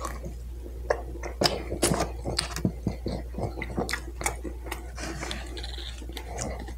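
A person chewing a mouthful of food, with many short wet mouth clicks and smacks.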